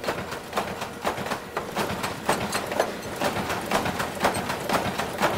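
Metal-workshop machinery running with a rhythmic clatter of short metallic knocks, about two a second.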